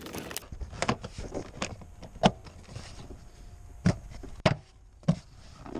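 Hands pulling and handling a power wire being routed through a car, with about six sharp knocks and clicks scattered over low rustling, the loudest a little past two seconds in.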